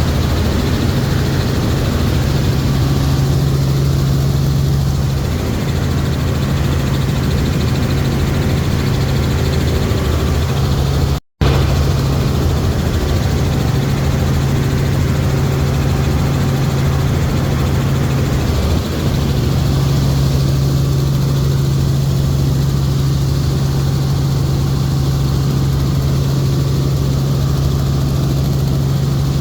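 Helicopter in flight: the steady drone of rotor and engine, with a strong low hum. The sound cuts out completely for a split second about eleven seconds in.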